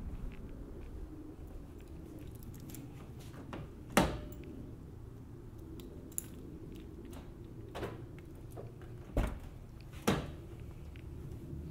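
A few sharp clicks and knocks from handling a key fob and a car door, the loudest about four seconds in, ending with the Acura RSX's driver door clicked open by hand near the end.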